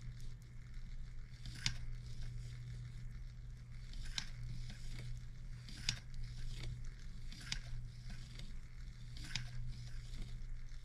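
Faint light clicks every second and a half or two from a cutaway slide-valve steam engine demonstration model worked by hand, its piston, slide valve and linkage moving, over a steady low hum.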